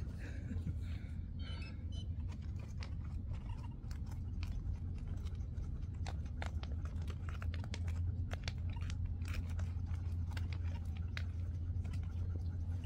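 Irregular small crunches and crackles of dry, stony ground being disturbed, over a steady low rumble.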